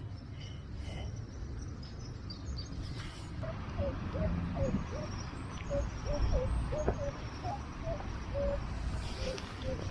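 Minelab CTX 3030 metal detector sounding a run of short, low blips of varying pitch as it is swept over ground, starting a few seconds in. A low rumble of wind on the microphone runs under it.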